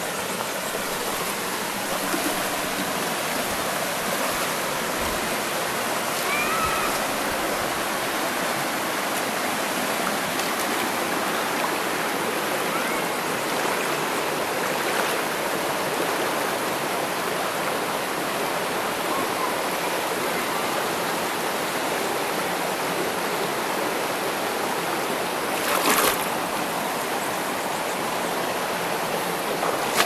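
Steady rush of river water flowing over the rocks of a waterfall stream. A short, louder noise breaks in near the end.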